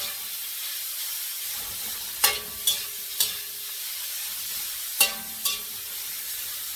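Marinated chicken breast pieces with garlic sizzling steadily in hot oil in a pan while being stir-fried. A spatula clinks against the pan five times, three times starting about two seconds in and twice about five seconds in.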